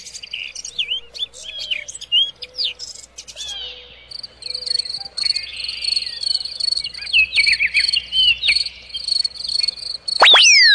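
Birds chirping in quick short calls, with an insect's steady high trill from about four seconds in. About ten seconds in, a loud whistle-like tone sweeps sharply downward.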